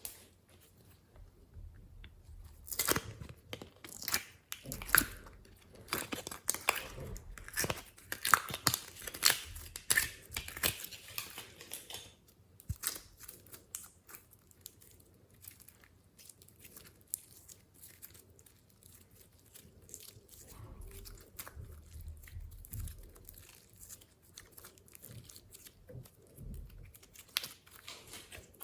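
Glossy slime being mixed and stretched by hand: rapid sticky crackles and pops, densest for the first ten seconds or so, then quieter, scattered squishing.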